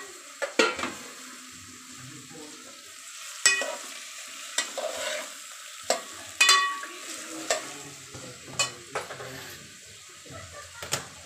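Sliced onions sizzling in hot oil in an aluminium pot, with a steady hiss. A metal ladle clinks against the pot about nine times as they are stirred.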